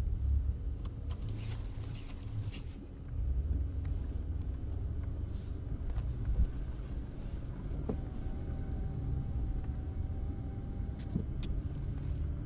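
Cabin sound of a Lorinser-tuned Mercedes S600, twin-turbo V12, driving on a snowy road: steady low engine and tyre rumble. A few light ticks come about one to three seconds in, and a faint steady whine runs for about three seconds past the middle.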